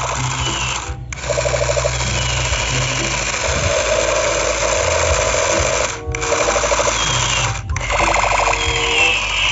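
Battery-powered light-up toy machine pistol firing its electronic sound effect: a fast, rattling machine-gun buzz with pulsing tones. It stops briefly three times, about a second in, around six seconds and shortly before eight seconds, as the trigger is let go and pressed again.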